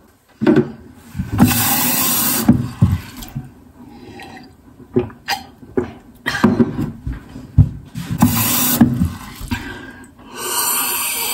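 A boy making loud breathing and mouth noises in short noisy bursts, then drinking water from a glass with gulps and slurps.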